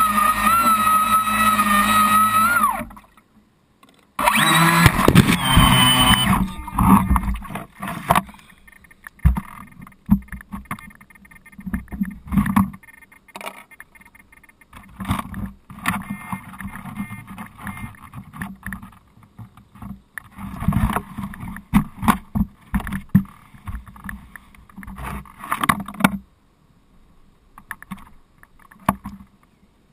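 Small model boat's motor running with a steady whine, winding down and stopping about three seconds in, then a short loud burst of motor running again. After that come irregular knocks and clatter as the boat is handled out of the water, fading to quiet near the end.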